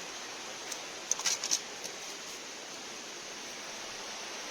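Steady rushing hiss of a small waterfall, with a short cluster of sharp clicks about a second in.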